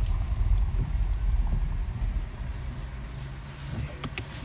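Low rumble of an Audi car heard from inside the cabin as it rolls forward and pulls up. The rumble eases about two and a half seconds in as the car slows to a stop, and two sharp clicks come near the end.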